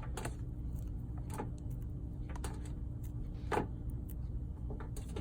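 Small dog treats being broken up by hand: a few short, sharp snaps and clicks spaced about a second apart, over a low steady hum.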